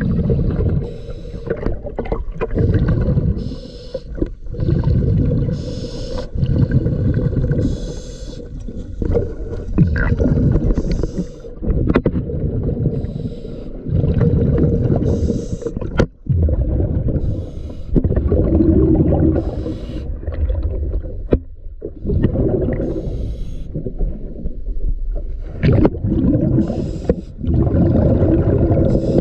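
A diver's breathing regulator heard underwater: a gurgling burst of exhaled bubbles about every four seconds, with short hissing breaths in between.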